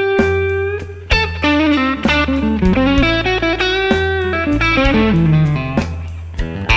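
Stratocaster-style electric guitar playing a blues solo of single-note lines, with held notes and bent notes. Bass and drums play steadily underneath.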